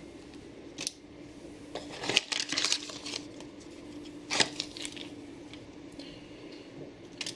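Small plastic zip-lock parts bags crinkling and tapping as they are handled and set down on a mat. The sounds come as short scattered rustles and clicks, a cluster about two to three seconds in and single ones near the middle and end, over a faint steady hum.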